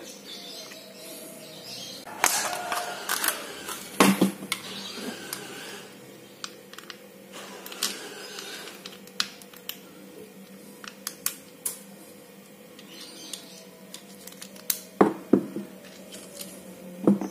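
Irregular small metal clicks and taps of a Jigging Master fishing reel being taken apart by hand, with a few louder knocks among them, over a faint steady hum.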